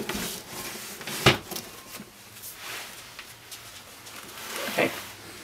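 Objects being handled and set down on a workbench: a knock at the start, a sharp louder knock about a second in, rustling and shuffling between, and another short, louder noise near the end.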